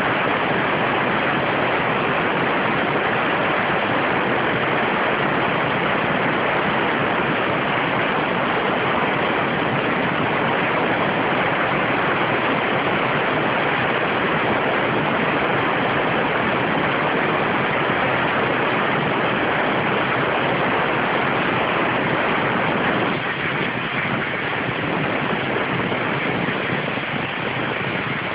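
CNC waterjet cutter's high-pressure jet cutting through 70 mm stainless steel: a loud, steady hiss of water. It drops a little in level near the end.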